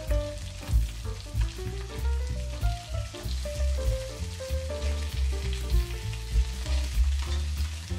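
Smoked mackerel fillets sizzling as they fry in a non-stick pan, with a fine crackle of hot oil. Background music with a stepping melody over a deep bass plays throughout and is the loudest sound.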